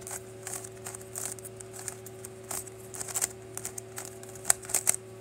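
A new GAN 356 M magnetic speedcube being turned by hand: a string of quick, light clicks as the layers turn, bunching into a faster run of louder clicks near the end. A steady low hum runs underneath.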